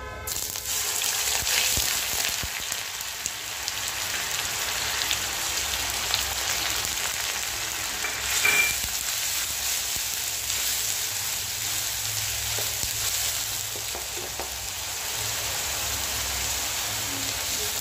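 Onion paste sizzling and frying in hot mustard oil in a metal kadai, stirred with a wooden spatula; the sizzle starts suddenly just after the start as the paste goes into the oil. The paste is being fried until its raw smell is gone.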